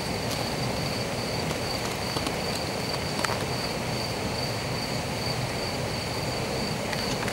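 Field cricket song: a steady high-pitched trill that runs on without a break, over an even background rush, with a few faint clicks.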